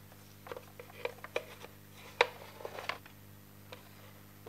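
Metal chassis of a Sony TC-357A reel-to-reel tape recorder being handled and fitted into its wooden case: a run of light clicks and knocks, the loudest a sharp knock a little after two seconds in.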